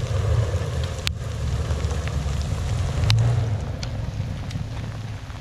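A vehicle engine running with a low rumble that swells briefly about three seconds in, under a steady rushing noise, with a few sharp clicks.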